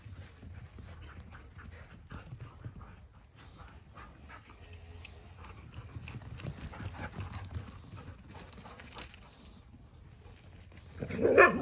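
Siberian huskies running on a grass lawn: a patter of paw footfalls and rustling. Near the end, one short, loud husky call.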